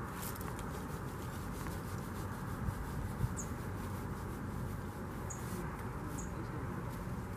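Steady outdoor background noise on a winter canal bank, with four short, high chirps that slide downward, scattered through the second half.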